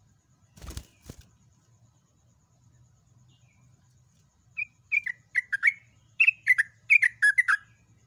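Yellow-vented bulbul singing from about halfway through: a fast, loud run of about a dozen short, bubbly notes, each dropping in pitch. Two soft thuds come about a second in.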